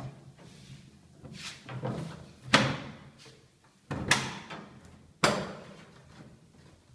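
Sharp knocks and clunks as the plastic outer-tub parts of a top-loading Sanyo washing machine are handled during disassembly. Three loud knocks come about a second apart in the middle of the stretch, each with a short ring, after a few lighter ones.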